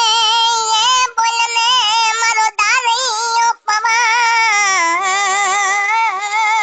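A high-pitched voice singing a wavering melody with strong vibrato, unaccompanied, in four phrases broken by short breaths.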